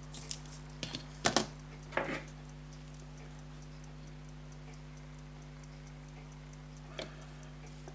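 Fusee pocket watch ticking faintly with a rapid, even beat. A few sharp clicks of handling come in the first two seconds and once near the end, over a steady electrical hum.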